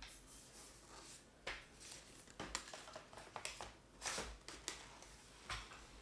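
Plastic parts of a cordless stick vacuum being handled: a scattering of light clicks and knocks at irregular intervals.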